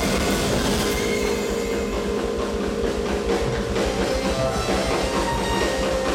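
Several drum kits played at once in a dense, continuous improvised rhythm, with sustained keyboard notes held over the drumming.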